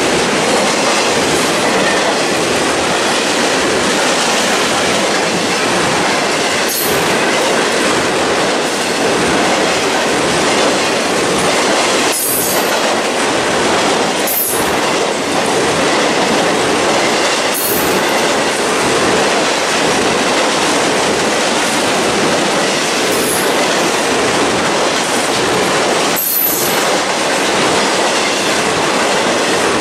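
Intermodal freight train of containers and trailers passing close by: a steady loud rumble and rattle of wheels on the rails, with a brief high wheel squeal every few seconds, six in all.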